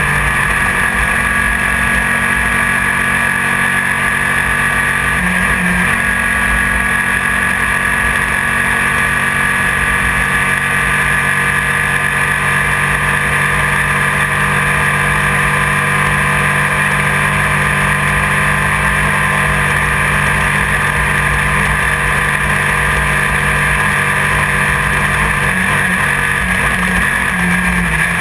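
Class 1600 desert race car's air-cooled VW four-cylinder engine running hard under load, heard from inside the car along with dense road and wind noise. The engine note holds steady, with short shifts in pitch about five seconds in and again near the end.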